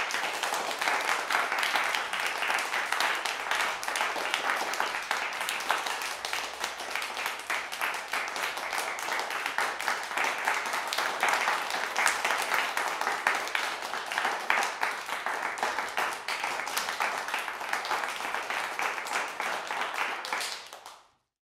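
Audience applauding steadily, a dense patter of many hands clapping that fades out near the end.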